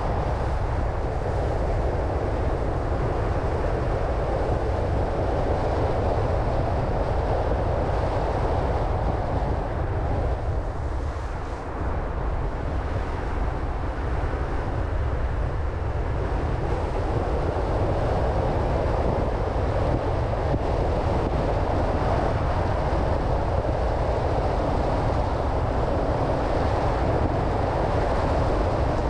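Steady road and wind noise from a car driving along: a continuous rumble, with a brief dip in level about eleven seconds in.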